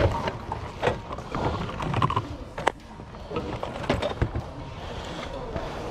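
Hands rummaging through a bin of mixed secondhand goods: items shifted and knocked about, with irregular clicks and knocks among the rustling.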